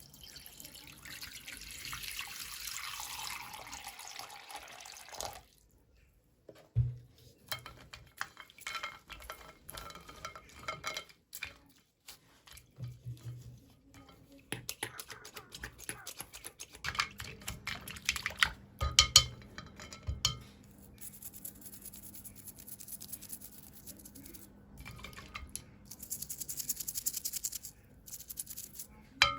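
A steady rush like running or pouring water for about five seconds, then a long series of small clinks and taps, like tiny dishes and hard little pieces being handled and set down, with a brief hissing stretch near the end.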